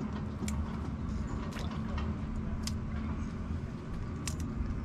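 Shells of boiled swimming crabs cracking in a few sharp clicks as the legs are twisted off by hand, over a steady low hum.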